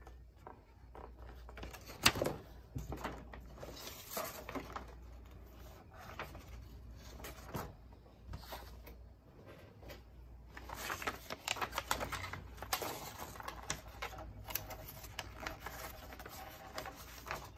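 Small plastic toy figures and parts clicking and clattering as they are handled and set down on a table, with one sharp click about two seconds in and denser clicking in the second half.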